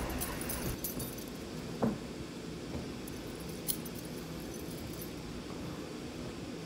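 Faint handling noise of bedding as a pillow is worked into a pillowcase: fabric rustling with a couple of short light knocks, over a steady room hum.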